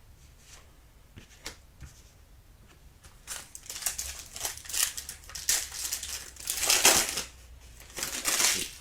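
A foil trading-card pack being torn open and crinkled: a run of loud, irregular crackling starting about three seconds in, after a few faint clicks.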